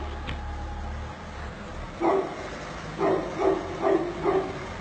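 A dog barking: one short bark about two seconds in, then four short barks in quick succession. A low hum underneath drops away about a second in.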